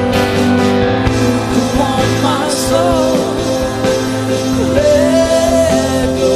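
Live worship band music: sustained chords with a steady drum beat, and a wavering, wordless melody line rising over them from about two seconds in.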